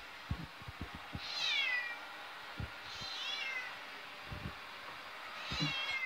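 A cat meows three times, each call high and falling in pitch, over the steady whir of a running robot vacuum. A few low knocks come in the first second.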